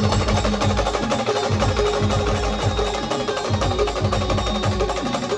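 Brass band playing an instrumental passage: a fast, dense drum and percussion rhythm under a few held brass notes.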